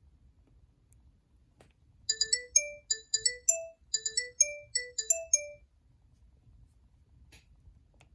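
Cingular 8525 (HTC Hermes) Pocket PC phone playing an electronic ringtone through its speaker: a quick melody of short, bright notes in one phrase played twice. It starts about two seconds in and stops about three and a half seconds later.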